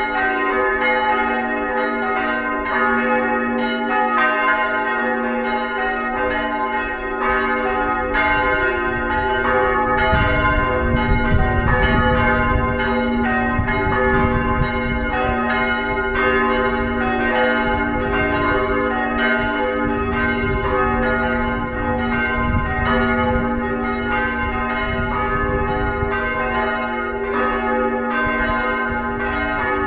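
Full peal of the Jesus-Christus-Kirche's four church bells swinging together, their strokes overlapping in a steady, continuous ringing. A low rumble runs beneath the bells from about ten seconds in.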